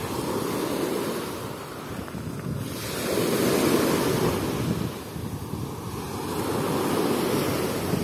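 Small waves of the Sea of Azov breaking and washing up a sandy shore in swells, the loudest wash about three seconds in, with wind rumbling on the microphone.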